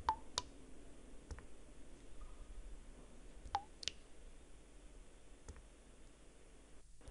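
Water drops falling into water, plinking in pairs about three and a half seconds apart, with a few fainter ticks between.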